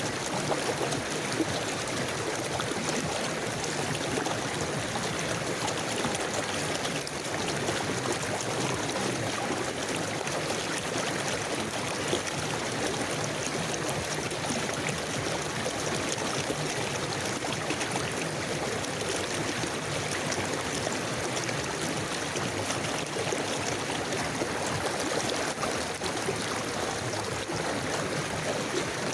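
River water flowing steadily over rocks, a continuous rushing babble with small splashes.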